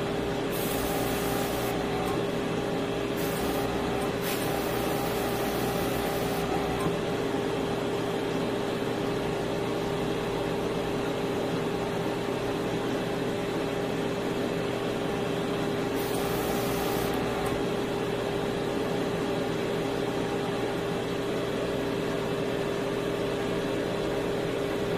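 Small electric motor humming steadily with a constant tone. Short hisses of air come in a few times, near the start and again about sixteen seconds in.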